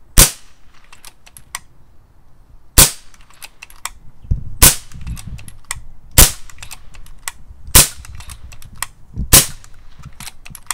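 Brocock Sahara XR .177 PCP air rifle firing six sharp shots, about one every one and a half to two and a half seconds. Between the shots come smaller clicks as the side-lever is cycled to load the next pellet from the multi-shot magazine.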